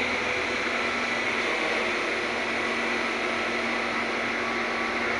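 Truck crane's engine running steadily, a constant hum with a steady low tone and no breaks.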